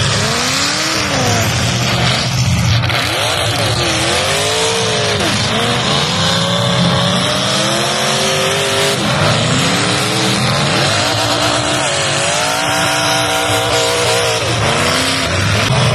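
Demolition derby cars' engines revving hard, their pitch rising and falling every second or two as the cars accelerate and back up, over a constant din of several engines.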